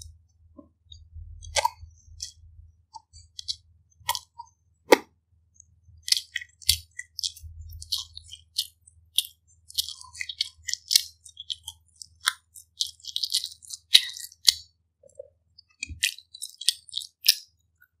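Close-miked chewing of pizza crust: irregular wet mouth clicks and small crunches, sparse at first and busier from about six seconds in.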